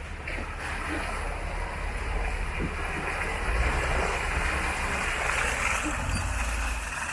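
Off-road vehicle's engine running low under a steady rush of splashing, like tires working through mud and water on a wet trail.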